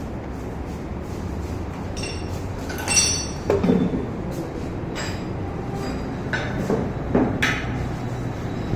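Scattered metallic clinks and knocks, about six in all, one about three seconds in ringing briefly, over a steady low hum.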